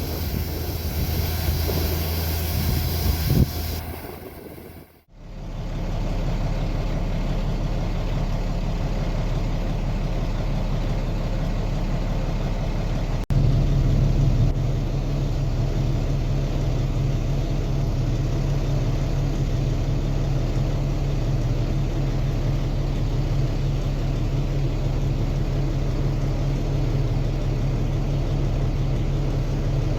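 A heavy diesel vehicle engine running steadily at a low, even hum; about thirteen seconds in there is a click and it gets a little louder. The opening seconds are a wind-like hiss that fades out at a cut.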